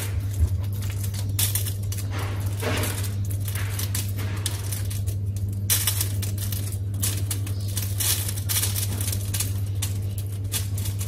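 Short scrapes and clicks of a metal spoon pressing raw minced pork filling into a bitter melon, over a steady low hum.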